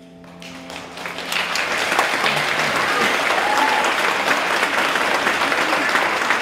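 Audience applauding at the end of a stage performance. The clapping swells in over the first two seconds as the last held notes of soft music fade away, then holds steady and dense.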